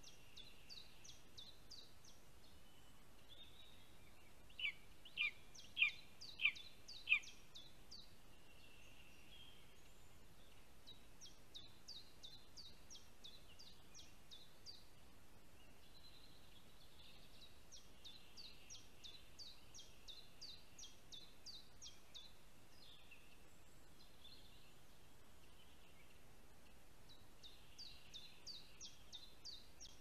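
Small forest songbirds singing faintly: phrases of rapid, high, thin notes repeated every few seconds. About five seconds in, five louder, lower notes come in quick succession, about half a second apart.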